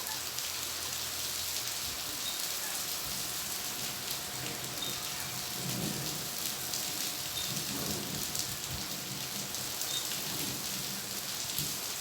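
Heavy rain pouring down steadily, a dense even hiss of a tropical downpour.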